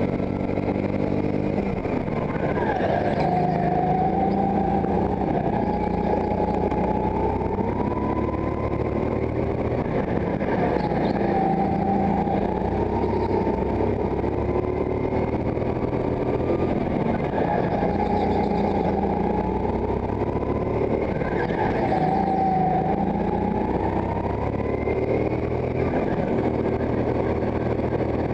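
Go-kart engine heard onboard, running hard around a track: its pitch climbs steadily down each straight, then drops sharply as the kart slows for a corner, several times over.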